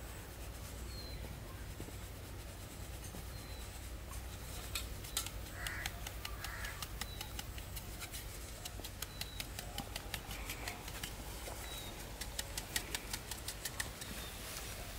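Ceramic bowl clinking and scraping against a steel tub while flour is scooped and poured: a run of light clicks, thickening near the end, with faint bird chirps.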